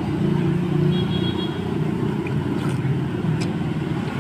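Low, steady rumble of motor-vehicle engines from street traffic close by, with a couple of faint clicks in the second half.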